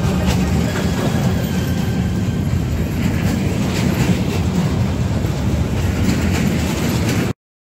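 Freight train of covered goods wagons rolling past close by: a steady rumble of steel wheels on the rails with scattered clicks over rail joints. It cuts off suddenly near the end.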